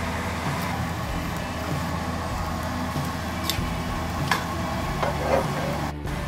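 Steady low hum of kitchen background, with light metal clinks of serving tongs against a pot twice past the middle and a short scraping clatter near the end as spaghetti is served from an enamelled pot into roasted butternut squash halves.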